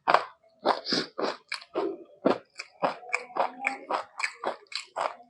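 A person chewing and biting a mouthful of rice with mutton and egg curry, giving quick wet mouth sounds at about three a second.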